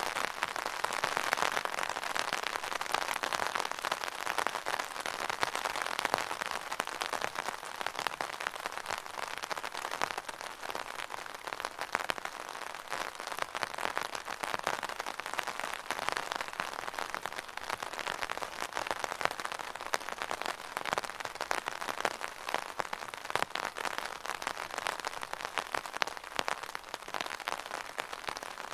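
Steady rain falling on an umbrella: a dense, even stream of drops tapping on the canopy.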